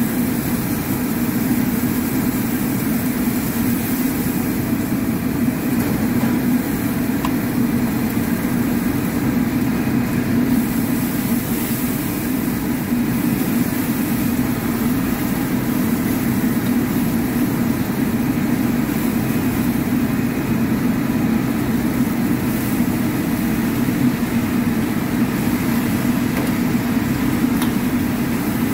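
Commercial gas wok burner running on a high flame, a loud steady noise with no breaks.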